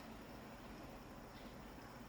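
Near silence: faint room tone with a light click at the start and a fainter tick about one and a half seconds in.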